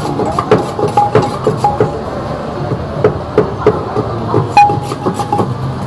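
Kitchen utensils knocking and clinking in quick, uneven strokes, about two to three a second, some with a short metallic ring, over a steady low hum.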